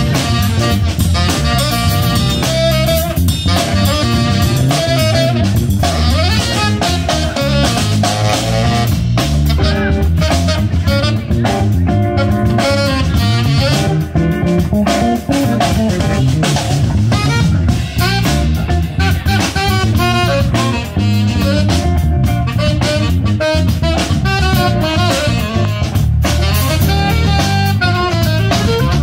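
Live jazz band playing: saxophone carrying the melody over a steady drum-kit groove and electric bass.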